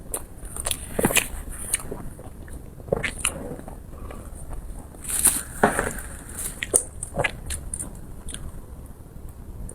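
A person biting and chewing food close to the microphone, with irregular wet clicks and a few louder bites.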